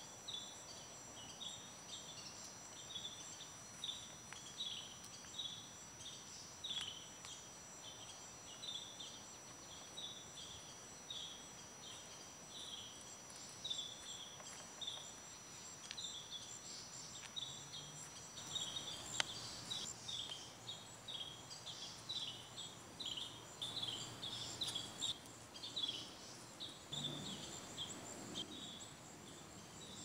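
Late-summer backyard chorus of crickets and birds: a high chirp repeating two or three times a second, with fainter high insect trills and a steady high tone behind it. The chirping grows busier from about two-thirds in.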